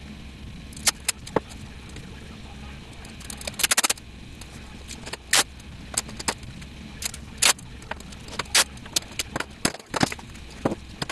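Clear tape being pulled off its roll in short rasping pulls and pressed down onto paper: a scatter of sharp crackles, with a quick run of them about three and a half seconds in. A steady low hum runs underneath.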